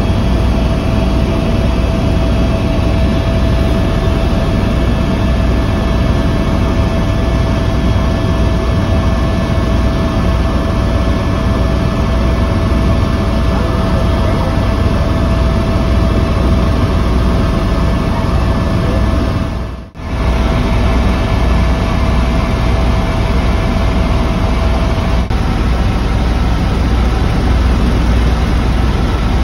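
Helicopter engine and rotor noise heard from inside the cabin in flight: a loud, steady drone with a deep low throb and a thin steady whine. The whine stops near the end, and the sound drops out briefly about twenty seconds in.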